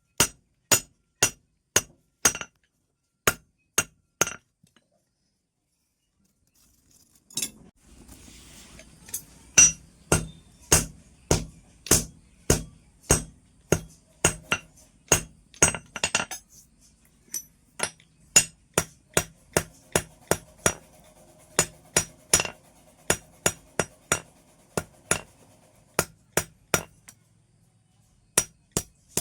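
Hand hammer striking metal on an anvil: a long run of sharp, ringing blows at about two a second, with a pause of about three seconds near the start.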